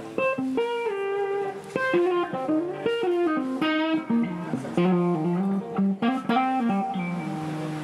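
Electric guitar playing a blues melody line of single notes, some of them sliding in pitch.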